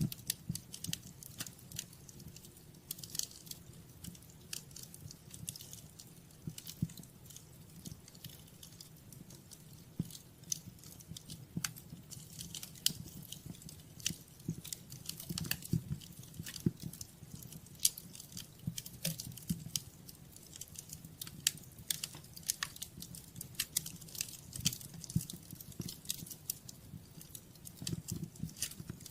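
Wood fire crackling in a fireplace: irregular snaps and pops, some louder than others, over a low steady rumble of the flames.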